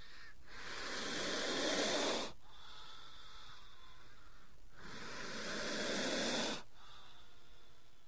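King cobra hissing: two long hisses, each swelling over about a second and a half and then cutting off sharply, with fainter hissing between them.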